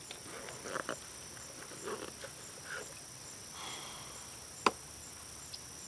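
Grasshoppers chirping in the streamside grass, a steady high pulsing about twice a second. A single sharp click sounds about three-quarters of the way through.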